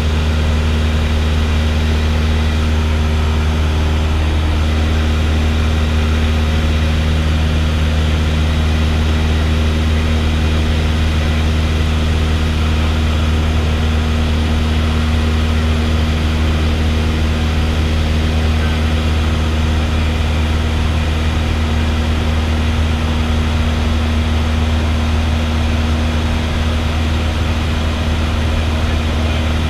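Single-engine piston light airplane's engine and propeller running steadily in cruise, heard from inside the cabin as a constant low drone.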